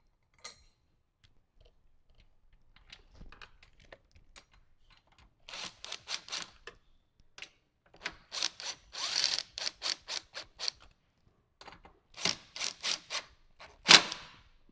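Ratchet wrench with a 10 mm socket tightening a fuse-block bracket bolt: faint ticks at first, then three runs of quick ratchet clicks, with a sharper, louder clack near the end.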